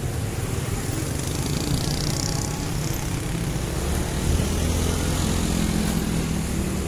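Motorcycle engine running at riding speed with road and wind noise. The engine note gets stronger about four seconds in.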